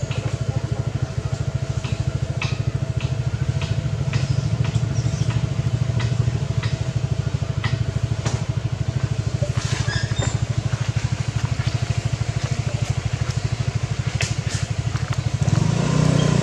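An engine running steadily at idle: a low, even throb, with a few faint clicks scattered over it.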